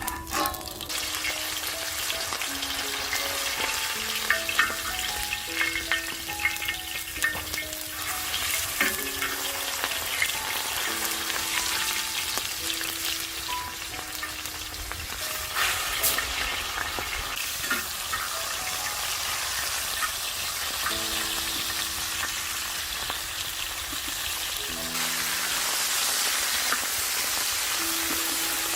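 Beef sizzling on a hot sadj griddle: a steady frying hiss with scattered sharp crackles and ticks, over soft melodic background music.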